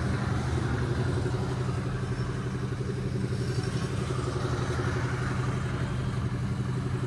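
Mahindra Thar's engine idling steadily.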